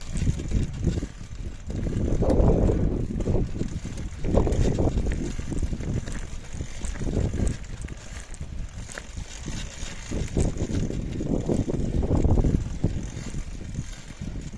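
Mountain bike moving over a loose dirt and gravel trail, its tyres rolling and crunching, with wind buffeting the microphone in irregular low rumbling surges.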